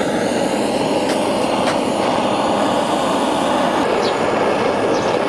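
Handheld canister gas torch burning steadily, its flame played over charcoal briquettes to light them. Two faint clicks come a little after a second in.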